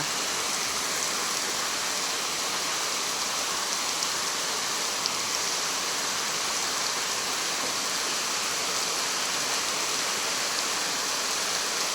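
Heavy downpour of rain, a steady, even hiss with no let-up.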